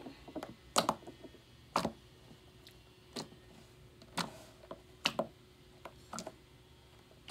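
Fingers pressing and kneading slime on a wooden tabletop, giving about eight sharp, irregularly spaced clicks and pops.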